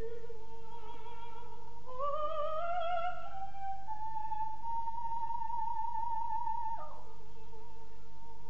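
Operatic soprano singing a soft, pure-toned sustained line that glides smoothly up, holds a high note, then drops down near the end.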